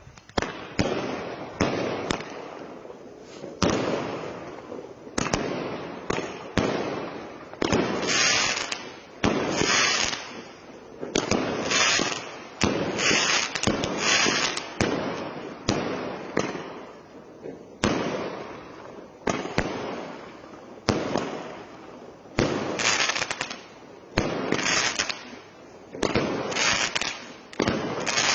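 A 20-shot firework cake firing shot after shot, about one every second or so. Each is a sharp bang followed by a second or so of hissing spray that fades before the next.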